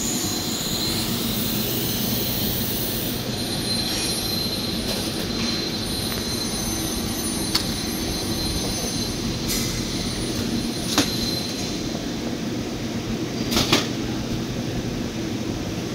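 Steady industrial workshop drone with a TIG welding arc hissing over it at first; the arc stops about three seconds in. Three short sharp clicks or knocks follow in the second half.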